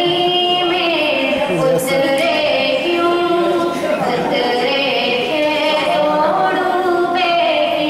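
A girl singing solo in Hindi-Urdu, drawing out long held notes that slide from pitch to pitch.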